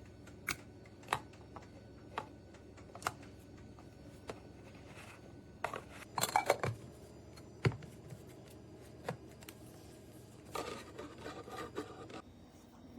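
Hard plastic or metal parts being handled: scattered single clicks and taps, a quick flurry of knocks about six seconds in, and a stretch of rubbing and scraping near the end.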